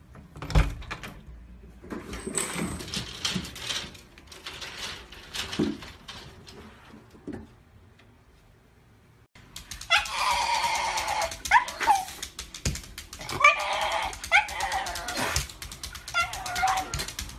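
Black-and-tan Shiba Inu giving a long run of high-pitched, wavering cries that swoop up and down, starting suddenly about halfway through. Before that there are only softer clicks and rustling.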